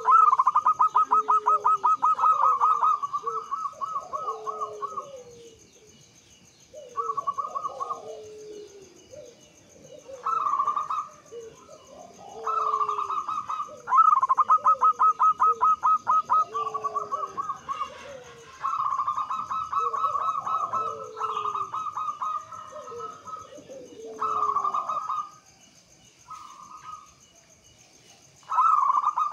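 Zebra doves (perkutut) cooing: repeated phrases of loud, rapid, trilled notes mixed with lower, falling coos. The phrases come in bursts of a few seconds, with short pauses between them.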